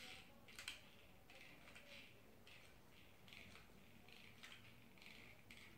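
Faint handling noise: soft rustles of faux-fur fabric and a couple of light clicks as a hot glue gun is worked along the fur of a mascot foot.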